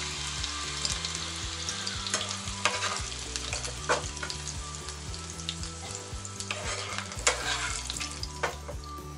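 Ginkgo nuts sizzling steadily in shallow oil in a frying pan as a wire-mesh skimmer scoops them out, with half a dozen sharp clicks and knocks along the way.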